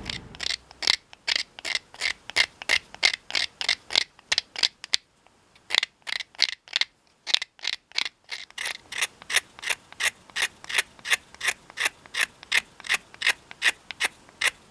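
Pocket knife blade scraping the old finish off a small wooden awl handle in short, repeated strokes, about three a second, thinning out briefly around the middle.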